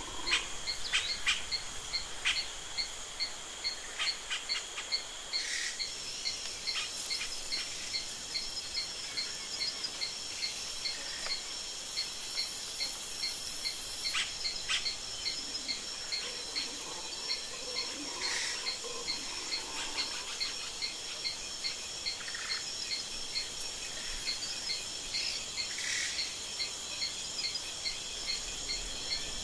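Insects chirping: several steady high trills, with one short, regular chirp repeating about twice a second throughout and a few brief calls over the top.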